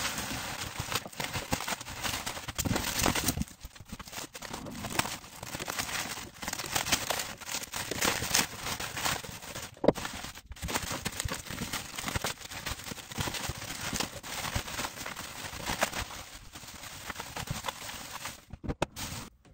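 Plastic bubble wrap crinkling and crackling with many small clicks as it is handled and pulled out of a cardboard box, with one sharper click about ten seconds in.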